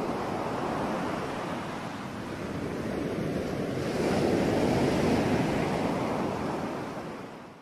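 Sea waves washing with some wind noise, swelling louder about halfway through and fading out near the end.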